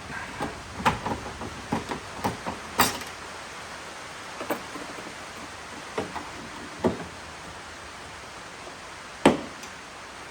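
Irregular clicks and knocks of hands and tools working a lock cylinder and its metal retainer into a Fox-body Mustang's hatch. They come in a quick cluster at first, then a few single knocks, with the loudest sharp strike near the end.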